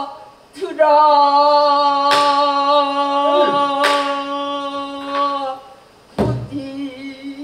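A female pansori singer holding one long sung note with a slight waver, punctuated twice by sharp strokes of the buk barrel drum; near the end a low drum stroke and the singing resumes.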